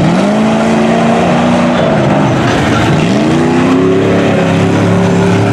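Mud truck's engine revving hard twice, about three seconds apart, each time rising in pitch and then holding, as the lifted pickup drives through a mud pit with its tires throwing mud.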